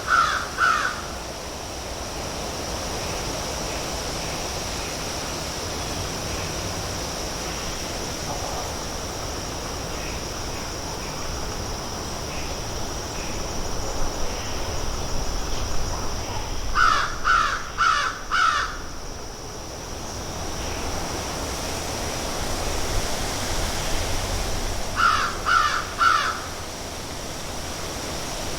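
Crows feeding and cawing: a call or two right at the start, a run of four harsh caws about two-thirds of the way in, and three more near the end, over a steady outdoor hiss.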